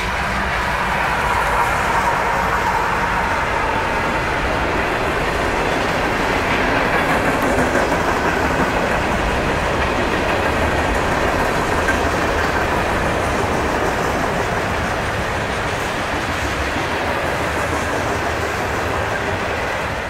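CSX freight train passing at close range. Two diesel locomotives go by at the start, then a long string of hopper, gondola and tank cars rolls steadily past on the rails.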